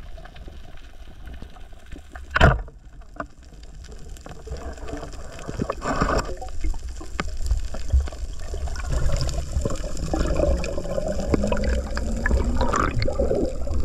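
Underwater water and bubble noise picked up by a housed camera, with one sharp, loud crack about two and a half seconds in as a speargun is fired into a fish. The bubbling water noise grows louder in the second half as the diver swims up.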